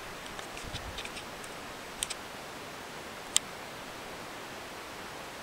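A few small, sharp clicks over a steady hiss: faint ones in the first second, a double click about two seconds in and a sharper single click about three and a half seconds in.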